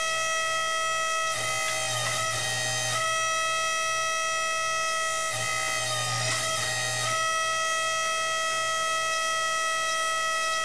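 Hydraulic pump of a homemade 60-ton, two-cylinder forging press running with a steady high whine over a low hum. Twice, about a second in and again about five seconds in, the whine wavers and the hum swells for a couple of seconds as the ram squeezes a hot steel bar between the dies under load.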